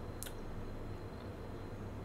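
One short, sharp wet mouth click from the lips or tongue about a quarter of a second in, over a steady low hum.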